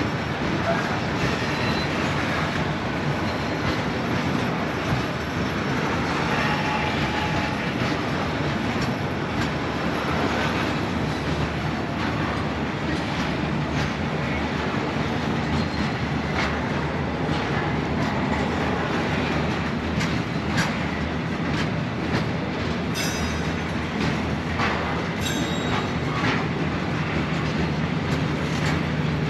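Narrow-gauge container freight train rolling past: a steady rumble of wagons on the rails with scattered clicks of wheels over rail joints, and two brief high wheel squeals about three-quarters of the way through.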